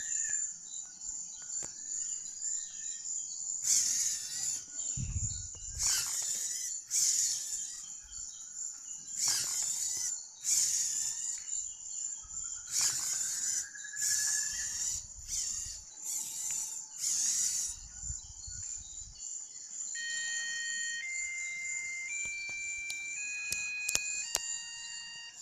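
Dynamixel AX-12+ servos of a Robotis kit robot whirring in a series of short bursts as its arms swing, over a steady high-pitched whine. From about 20 seconds in, the robot's buzzer plays a run of held beeping notes at stepping pitches.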